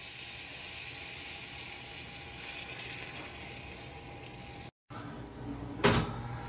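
Food sizzling steadily in bacon grease in a cast-iron skillet. About six seconds in comes a single sharp metallic clank as the skillet is set on the oven rack.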